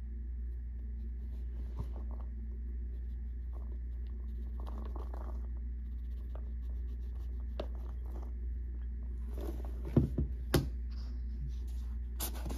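Baby powder falling into a glass bowl: soft crumbly patters and light scrapes, with a few louder thumps about ten seconds in, over a steady low hum.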